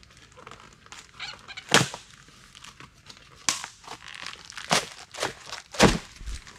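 Heavy corrugated cardboard being ripped and pulled loose from a stapled box seam: a series of sharp tearing crackles, loudest about two seconds in and near the end, where a dull thump comes with it.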